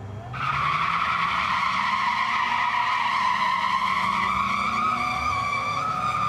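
Burnout at the drag-strip starting line: a 2009 Cadillac CTS-V's supercharged V8 revs up as its rear tyres spin, and a loud, steady tyre squeal starts suddenly about a third of a second in.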